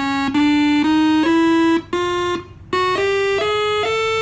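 Homemade analog monophonic pushbutton synthesizer playing its clean square-wave output with no tremolo: a buzzy tone stepping up note by note in a rising scale, each note held about half a second, with a short break about two and a half seconds in.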